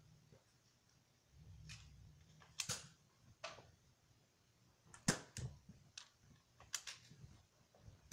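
Nerf blasters going off and foam darts knocking against things: a scattered run of sharp clicks and light knocks, the loudest about five seconds in.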